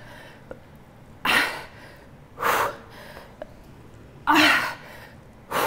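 A woman's forceful breaths out from exertion during push-ups, four sharp, noisy puffs spaced a second or two apart.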